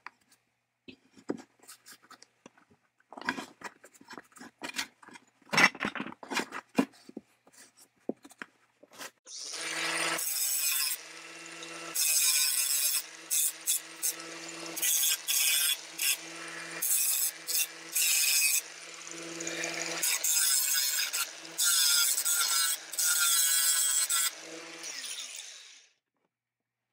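Scratchy rubbing and scrubbing on a metal plate by gloved hands. Then an angle grinder spins up and runs with a steady hum, grinding on sheet metal in several loud, hissing stretches, before it is switched off near the end.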